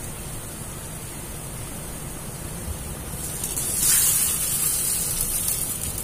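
Egg-dipped pathiri sheet sizzling in a hot oiled kadai: a steady hiss that swells about three seconds in as the sheet is laid over the filling and pressed onto the pan.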